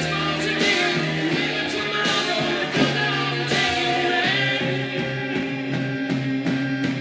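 Rock music with a singing voice over sustained chords; about two thirds of the way through the voice drops out and a steady drum beat carries on.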